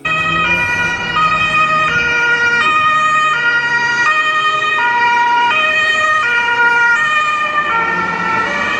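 Ambulance siren in the Japanese two-tone 'pee-po' pattern, switching between a higher and a lower note about every 0.7 seconds, loud and steady.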